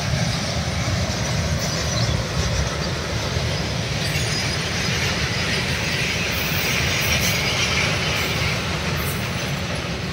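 Steady, loud rumbling and rattling of a vehicle in motion.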